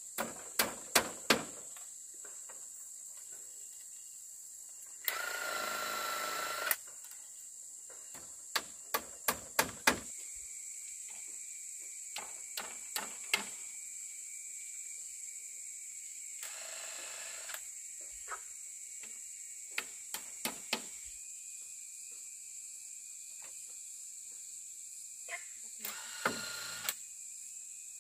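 Hand-tool work: groups of three to five sharp strikes in quick succession, with a harsher noise lasting under two seconds about five seconds in, over a steady high-pitched insect drone.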